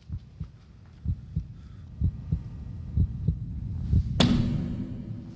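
Heartbeat sound effect, a low double thump about once a second, over a hum that slowly swells. About four seconds in a loud sharp crash cuts in and leaves a sustained low tone ringing.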